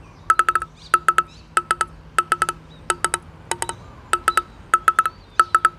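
A plastic table tennis ball tapped rapidly against a limba-faced ALC carbon table tennis blade. The taps come in quick groups of three or four clicks, about one and a half groups a second, each with a short ring from the blade: it is struck to bring out the blade's vibration and tone.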